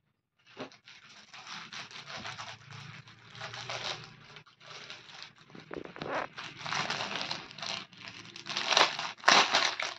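Clear plastic packet crinkling irregularly as it is handled and opened to take out a folded dupatta, louder near the end.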